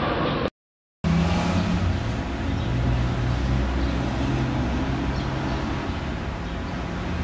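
A motor vehicle engine running with a steady low hum over street noise. The sound cuts out for about half a second shortly after the start, then comes back.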